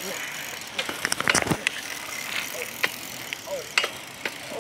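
Bicycle being ridden: a steady rush of wind and tyre noise, with scattered clicks and rattles from the bike and a close run of them about a second in.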